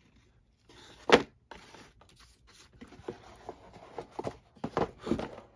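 A cardboard paper-doll box being handled and its lid fitted back on: one sharp knock about a second in, then a string of softer taps and scrapes of cardboard.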